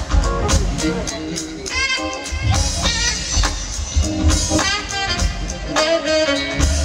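Live band playing a groove under the introductions: five-string electric bass and drum kit with saxophone lines over the top.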